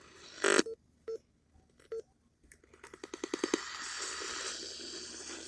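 AM radio audio: a sharp burst, a few short low beeps with silence between, then a run of quickening clicks that runs into steady static hiss.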